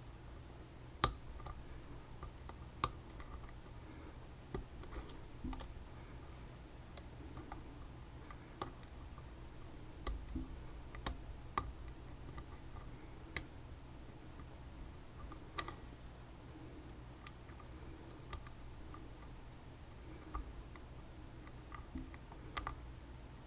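Irregular metallic clicks and ticks of a pick working inside a ChiLock, a Chinese copy of a BiLock, over a low steady hum.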